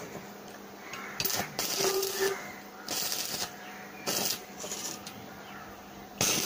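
Electric arc welder laying short tack welds: several separate bursts of sizzling crackle, each under a second, with a faint steady hum underneath.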